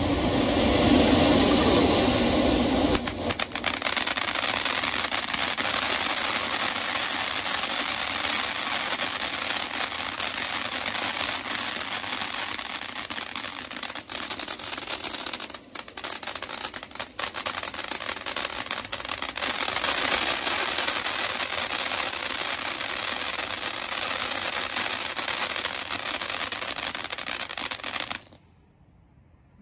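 Ground firework fountains spraying sparks: a loud, steady hissing spray, heavier and deeper for the first three seconds, then a thinner, higher hiss that cuts off abruptly near the end.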